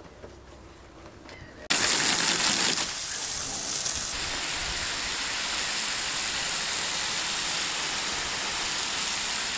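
Water spraying from a garden hose onto a teak grating, rinsing off the oxalic acid wood cleaner. It starts suddenly a little under two seconds in and goes on as a loud, steady hiss.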